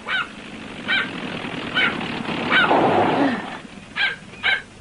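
Small dog yapping: about six short, high-pitched yaps roughly a second apart, the last two closer together. Underneath, a car engine runs steadily and fades out past the middle.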